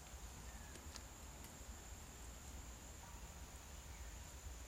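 Faint, steady high-pitched insect drone in the woods, over a low rumble, with one sharp click about a second in.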